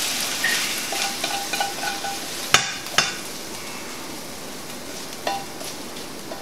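Butter and hot-pepper-jelly glaze sizzling in a stainless frying pan as chicken wings are lifted out with metal tongs, the tongs clinking against the pan. The sizzle fades after about two and a half seconds, and there are two sharp clinks about half a second apart and another near the end.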